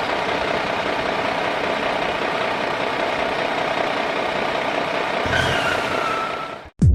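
A vehicle engine idling steadily, with a faint falling tone about five seconds in. It cuts off suddenly just before the end.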